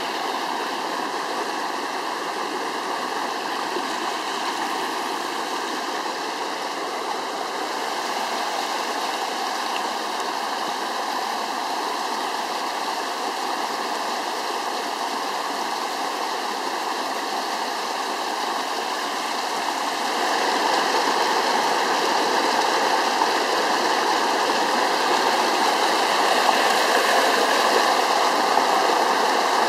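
Muddy floodwater rushing down a small forest stream swollen by a downpour, a steady rushing and churning of white water. It grows louder about two-thirds of the way through.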